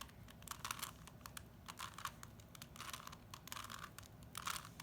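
A 3x3 Rubik's Cube being turned by hand: faint, irregular plastic clicks and scrapes as its layers are twisted, several a second.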